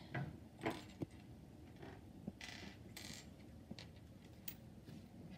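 Small plastic Lego minifigure pieces clicking and tapping on a wooden table as they are picked up and set down, with a couple of short rustles near the middle.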